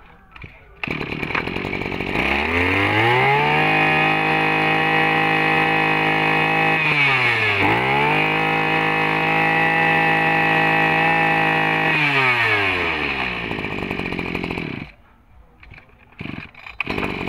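Small 20cc two-stroke engine of a Maru 20 brush cutter starting about a second in and revving up to high speed. It holds there, drops briefly and revs back up midway, then winds down and is switched off a couple of seconds before the end.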